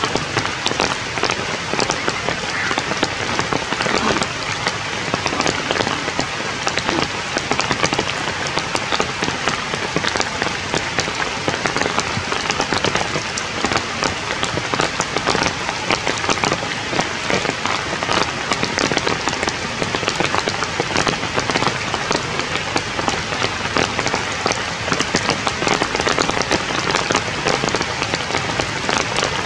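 Steady rain pattering on forest leaves, a dense hiss with many small drop ticks.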